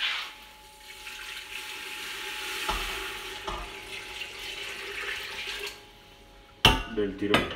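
Seafood stock poured from a saucepan into a stainless steel pot of toasted rice, a steady splashing pour lasting about five seconds, with a couple of light knocks partway through.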